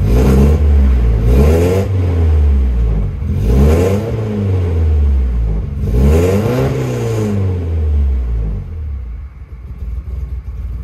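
Volvo 240's red-block four-cylinder engine, freshly brought back to running, with its revs rising and falling several times, then settling lower and quieter near the end. It doesn't like to idle, which the owner thinks may need an idle air control valve.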